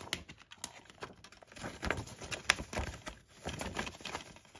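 Plastic Blu-ray keep case being handled and opened: an irregular run of small clicks and rustles, with the sharpest click about halfway through.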